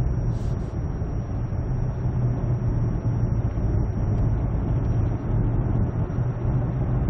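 Steady low drone of a 2007 Hyundai Santa Fe on the move, heard from inside the cabin: engine and road noise.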